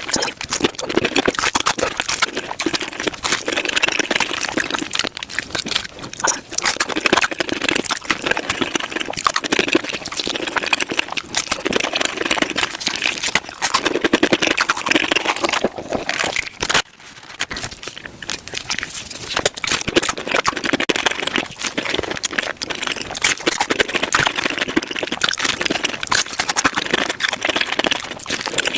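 Taco-eating mukbang sounds played at five times speed: rapid, dense chewing and mouth-smacking clicks, with a short gap about seventeen seconds in.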